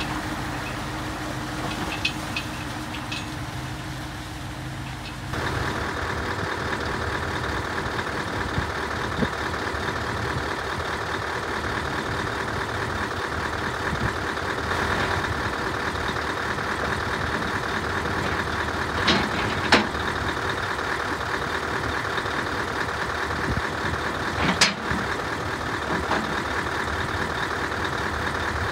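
Scania 143 500's 14-litre V8 diesel idling steadily. It gets louder and fuller about five seconds in. Three short sharp clicks come in the second half.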